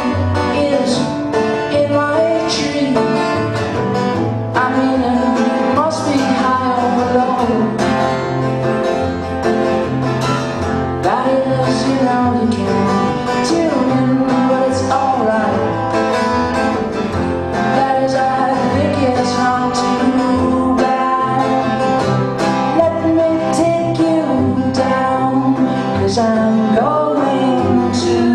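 Instrumental duo of guitar and cello playing a song live: plucked guitar strings under a gliding, bowed cello melody.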